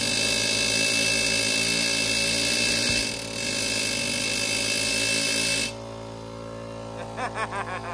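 A pneumatic air chisel (air hammer) buzzing steadily against a stuck wheel hub, with a hiss of exhaust air. It breaks off briefly about three seconds in, then stops near the end of the sixth second, leaving the steady hum of the air compressor running.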